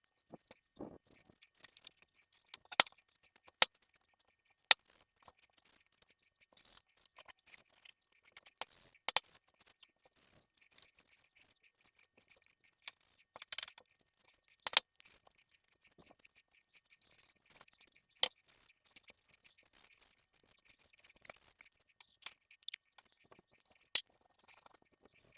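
Sporadic sharp clicks and taps with a little light rubbing, spread irregularly with quiet between: handling the oil and the wooden cross while oiling it by hand.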